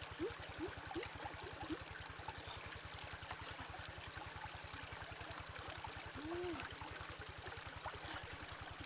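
Steady rush of a forest stream, with a few short hummed 'mm' sounds that rise and fall in pitch: several in the first two seconds and one more about six seconds in.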